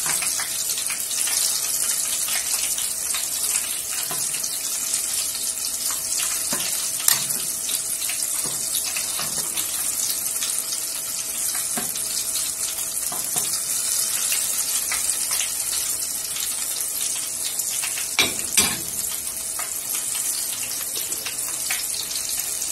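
Banana batter fritters (bolinhos de chuva) deep-frying in hot oil in an aluminium pot: a steady, high hiss full of fine crackles. A few louder clicks stand out, the loudest about three quarters of the way in, as the fritters are turned with a utensil.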